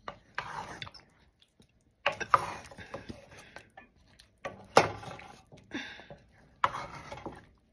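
Wooden spoon stirring a thick palava sauce stew in a pot, in several short bursts of scraping and sloshing, with a sharp knock against the pot about five seconds in.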